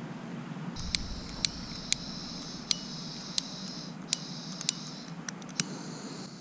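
Small handheld gas torch with a trigger igniter clicking about nine times, irregularly, while gas hisses from the nozzle: the torch being lit. The hiss breaks off near the end and returns fainter.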